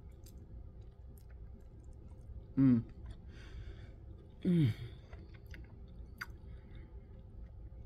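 A person chewing a mouthful of soba noodles, with soft small clicks of the mouth, and twice humming an appreciative "mmm" that falls in pitch, about two and a half and four and a half seconds in.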